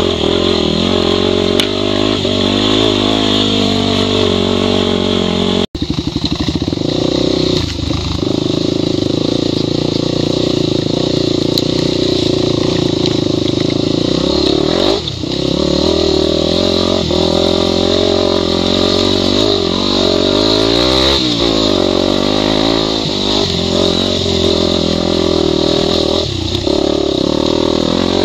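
Yamaha WR250 enduro motorcycle's single-cylinder four-stroke engine running under changing throttle over loose rock, its pitch rising and falling again and again. The sound cuts out for an instant about six seconds in.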